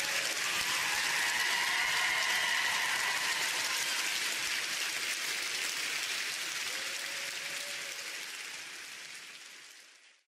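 Audience applause, a steady clatter of clapping that fades out and is gone about ten seconds in.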